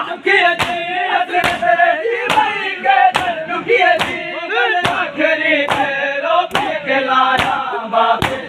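Matam: a crowd of men chanting loudly together, with sharp slaps of hands on bare chests landing in unison at a steady beat, a little faster than once a second.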